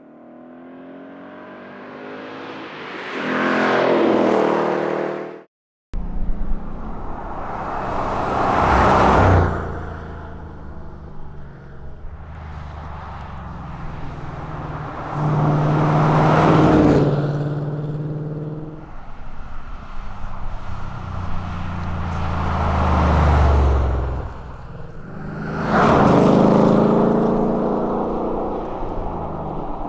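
Ford Mustang Dark Horse's 5.0-litre Coyote V8 exhaust revving again and again, the pitch climbing and falling back about five times, with a short break after about five seconds.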